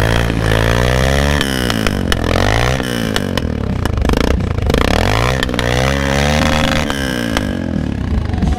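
Single-cylinder Karizma engine in a modified Hero Impulse, running through a cut-down makeshift free-flow exhaust, revved by hand several times, its pitch climbing and dropping back with each blip of the throttle.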